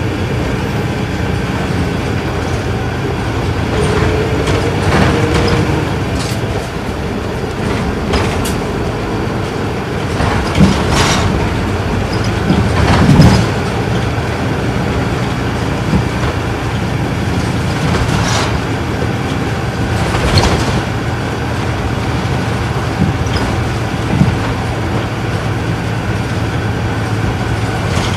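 Interior running sound of an Isuzu Erga Mio city bus, its inline-six diesel engine droning steadily as the bus cruises, with several brief knocks and rattles along the way.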